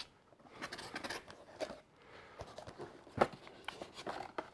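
Cardboard box being opened by hand, its flap and paper inserts handled: scattered soft rustles and light clicks, with a sharper tap about three seconds in.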